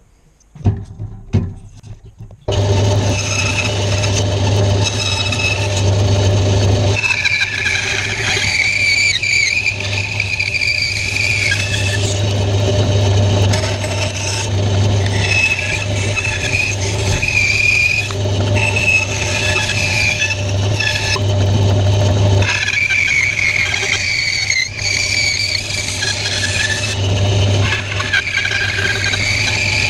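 Small benchtop bandsaw starting up about two and a half seconds in, then running with a steady hum while its blade cuts through pine blocks, a higher whine coming and going several times as the wood is pushed through. A few knocks come just before it starts.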